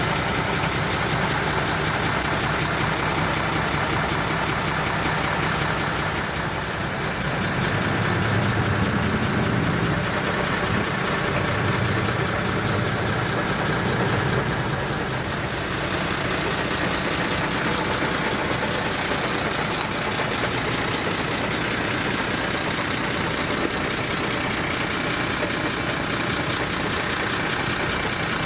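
Large diesel truck engine idling steadily, a low rumble that swells somewhat for several seconds near the middle.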